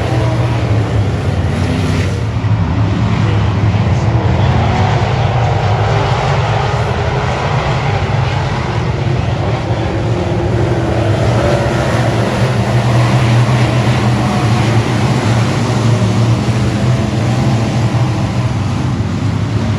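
Dirt-track race car engine running hard at racing speed, a loud, steady drone with little change in pitch.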